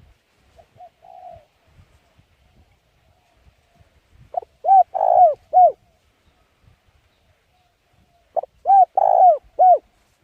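A bird calls twice, about four seconds apart. Each call is a short phrase of four or five notes that rise and fall in pitch, with a longer middle note. A fainter, shorter call comes about a second in.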